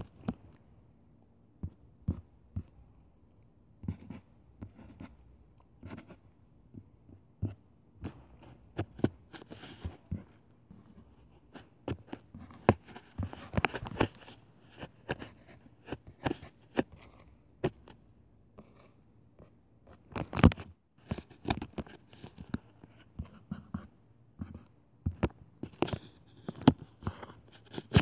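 Handwriting on a touchscreen in a drawing app: irregular taps and short scratching strokes, with one louder knock about two-thirds of the way through.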